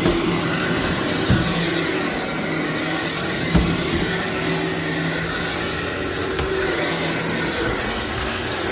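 Vacuum cleaner running steadily over dry-soiled carpet: a constant motor hum with a few short knocks, one near the start, one over a second in and one at about three and a half seconds.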